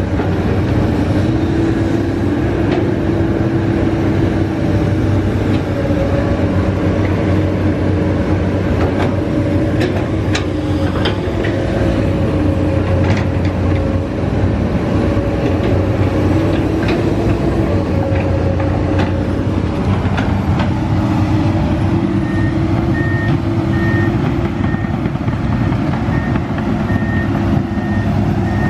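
Komatsu PC200 hydraulic excavator working: its diesel engine runs steadily under load, with a whine that shifts in pitch as the boom and bucket move, and scattered sharp knocks in the middle. Near the end an alarm starts beeping at an even rate, about two beeps a second.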